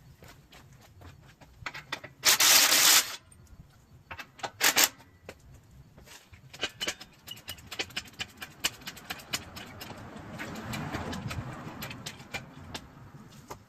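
Vehicle repair work: scattered clicks and metallic knocks of tools and parts. A short loud burst of noise comes about two seconds in and a briefer one just under five seconds in.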